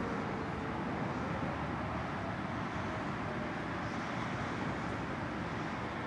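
Distant Whelen electronic tornado sirens sounding faintly as a few thin steady tones that shift slightly in pitch, under a louder steady rushing background noise.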